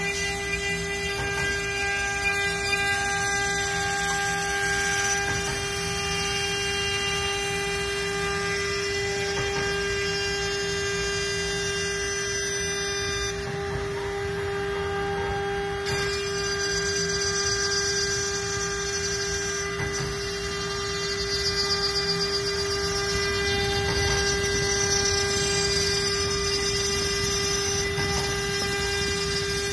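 CNC spindle running steadily with a constant humming tone, its small end mill grinding away a BGA chip on a laptop motherboard, with a rough cutting noise over the tone.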